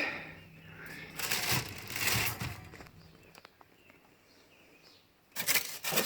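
Packaging rustling and shuffling as parts are lifted out of a box, in two stretches with a quiet spell of about two seconds between; the second stretch, near the end, is louder.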